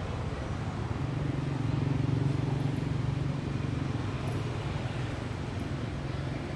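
An engine running steadily with a low hum, growing a little louder between about one and three seconds in. Faint high chirps sound over it through the middle.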